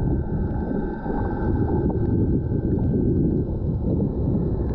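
Underwater ambience picked up by a camera below the surface: a steady, muffled low rumble of water, with a few faint clicks.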